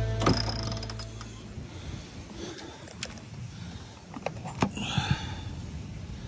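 Background music fading out, with a flurry of small clicks in the first second. Then light handling clicks and a short rustling scrape about five seconds in, as a padded vinyl cover is pulled off a boat's instrument display.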